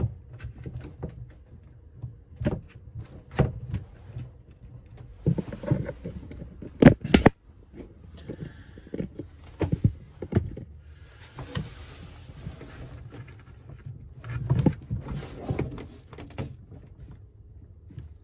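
Scattered clicks, knocks and rustling from hands working the plastic water lines, fittings and inlet valve beside an RV water pump, with a pair of sharper knocks about seven seconds in. The pump itself is not running.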